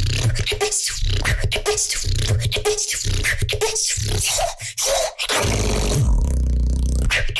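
A boy beatboxing: rapid clicks and snare-like hits over long, deep bass tones, with a short break about four and a half seconds in.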